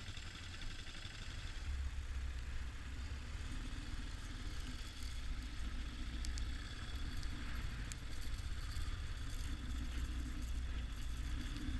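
Yamaha XT 600 single-cylinder motorcycle engine running steadily under way: a low drone with a steady hiss over it and a couple of faint clicks about six and eight seconds in.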